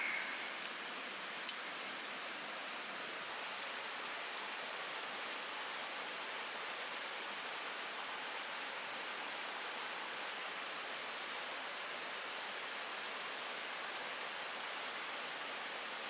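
Steady, even rushing of running river water, with a few faint sharp crackles from the dying wood fire, the clearest about a second and a half in.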